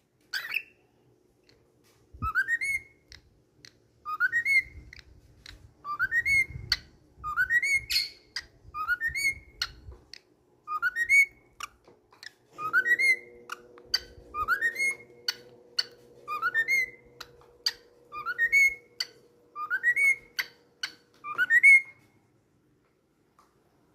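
Cockatiel whistling: a long series of short rising whistle notes, one every second or two, with small sharp clicks between them.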